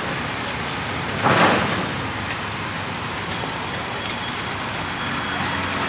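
Busy street traffic: a steady bed of road noise, with a brief louder whoosh a little over a second in and faint high thin tones from about three seconds on.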